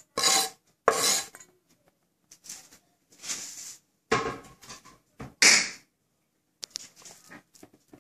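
Finely chopped onion being scraped off a wooden chopping board into a stainless steel mixing bowl: a run of short scrapes and knocks of wood and metal, the loudest about five and a half seconds in, then a few light clicks.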